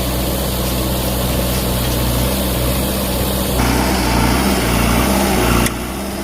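Diesel engine of a JCB 3DX backhoe loader running steadily while loading. It gets louder about three and a half seconds in, then drops abruptly near the end.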